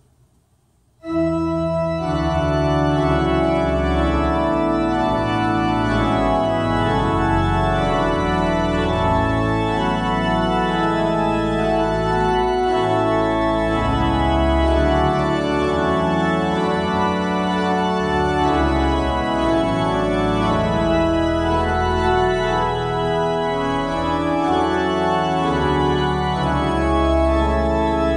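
Pipe organ coming in about a second in and playing full, sustained chords over a deep bass line.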